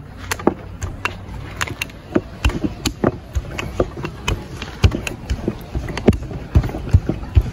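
Wooden rolling pin rolling roti dough flat on a floured wooden board: a low rolling rumble with irregular knocks and clicks, several a second, as the pin and board shift under the strokes.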